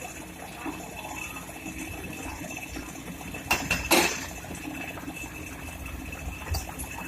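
Excavator working in a river: a steady low engine rumble under the sound of water, with two sharp clanks about halfway through.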